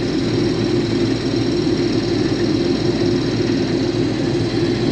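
Case IH combine running steadily while cutting wheat: a constant engine-and-machinery drone with a few steady tones and no change in pitch.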